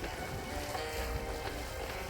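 Background music with held notes, over a steady low rumbling noise.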